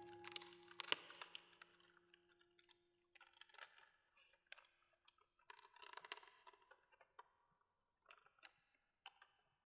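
Faint scattered clicks and crackles in irregular clusters, with a faint held tone that fades out over the first few seconds.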